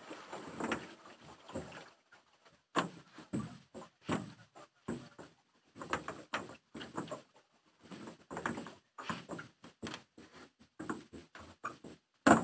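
Rowboat being rowed: short creaks, knocks and splashes from the oars working in their locks and dipping in the water, coming irregularly about once or twice a second.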